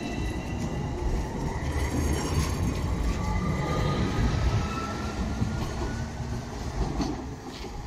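Tvärbanan light-rail tram pulling away from the platform and accelerating. Its wheels rumble on the rails under a motor whine that rises steadily in pitch. The sound fades near the end as the tram draws away.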